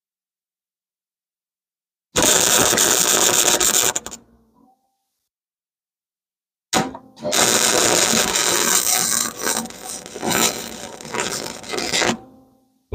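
Wire-feed welder arc crackling as a steel pipe is welded onto a bending jig: one burst of about two seconds, then after a pause a longer run of about five seconds that sputters on and off briefly at its start.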